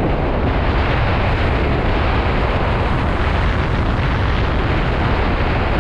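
Strong wind buffeting the microphone of a GoPro worn by a kitesurfer riding at speed across the water, a loud, steady rumble.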